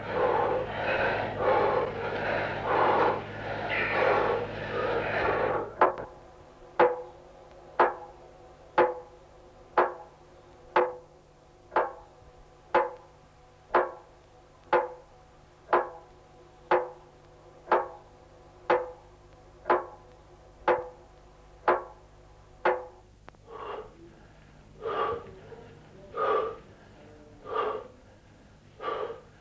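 Dense rushing noise with a low hum, then about a second apart a long run of sharp, even ticks, each with a short ring. Near the end the ticks give way to heavy, gasping breaths about every second and a bit.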